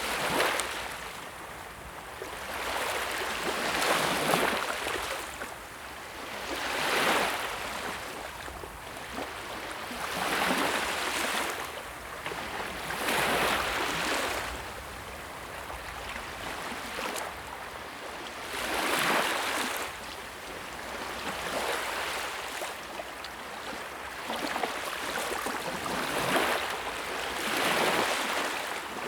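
Sea waves breaking and washing on the shore, the surf hiss surging and falling away every few seconds.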